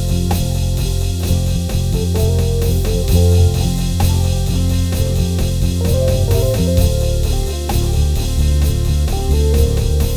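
Gospel worship music on keyboard: sustained chords and bass notes over a drum kit keeping a steady beat.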